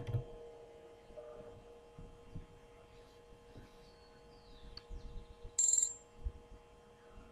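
Faint steady electrical hum with a few soft clicks, then a short, high-pitched electronic alert tone about five and a half seconds in, the trading platform's notification as the order goes through.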